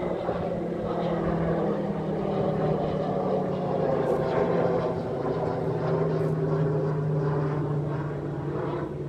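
Aircraft flying overhead, a steady engine drone with a low hum that dips slightly in pitch.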